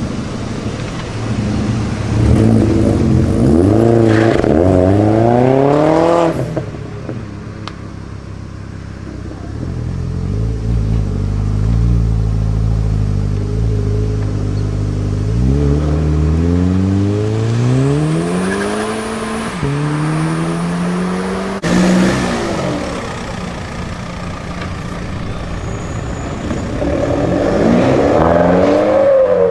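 Three modified cars accelerating hard away one after another, each engine revving up and shifting gear: first a SEAT Leon hatchback, then a Volkswagen Golf, then a BMW 3 Series saloon. Between the runs an engine holds a low steady note before the next one climbs.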